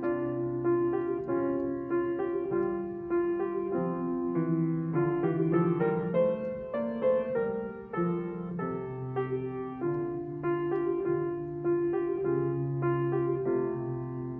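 Grand piano playing alone in a classical-style accompaniment, a continuous flow of notes and chords.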